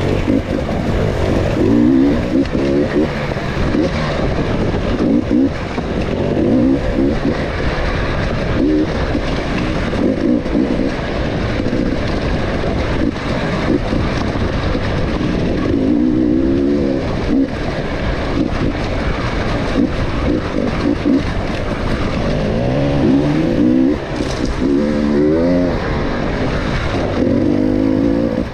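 Enduro motorcycle engine revving under throttle, its pitch climbing and dropping again and again every few seconds as the rider works the throttle.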